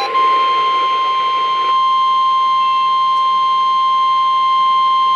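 NOAA Weather Radio's 1050 Hz warning alarm tone: one loud, steady, unwavering beep with a hiss of radio static under it for the first second or two. It signals that an emergency warning message is about to be broadcast.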